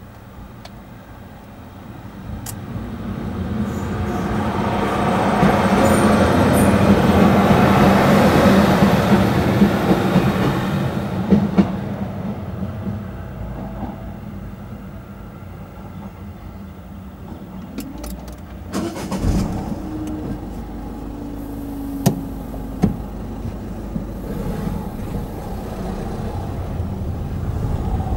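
Diesel passenger train passing over the level crossing: a rumble with a steady engine hum that builds over a few seconds, is loudest for several seconds and then fades away. Later it is quieter, with a short falling hum and a couple of sharp clicks.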